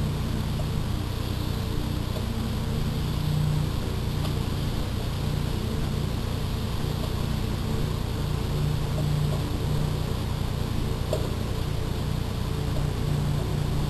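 Steady low hum with a buzzing edge, holding at the same level throughout, with a few faint ticks.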